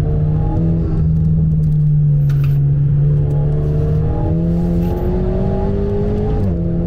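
Alpine A110's turbocharged four-cylinder, fitted with an EVOX downpipe, sport catalyst and stage 2 remap, pulling under acceleration with the revs climbing steadily. It drops sharply near the end as an upshift goes through.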